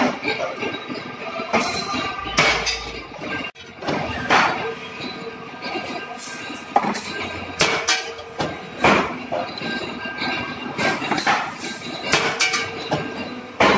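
Two-column hydraulic press punching 8.5 × 35 mm slot holes in 4 mm plate, with a dozen or so sharp metallic clanks and clinks at uneven intervals as the punch cuts through and the plate is handled.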